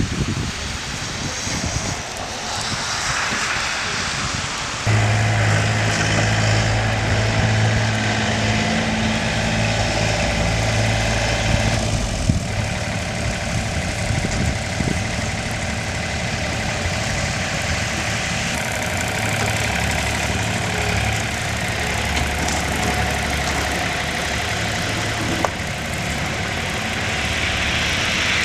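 A motor vehicle engine running steadily, growing louder and fuller about five seconds in and holding steady after that.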